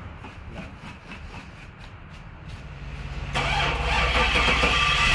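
Starter cranking the 5.7-litre LS1 V8 of a Chevrolet Lumina SS in quiet, even pulses, until the engine catches about three seconds in and runs loudly and steadily.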